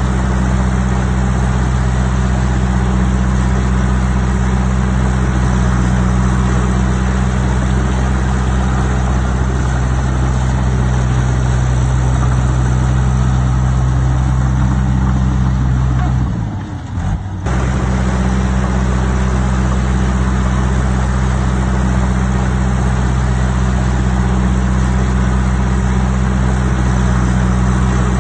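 Diesel engine of heavy earthmoving machinery running steadily with a deep, even hum. About sixteen seconds in it briefly drops in pitch and level for a second or so, then comes back to the same steady running.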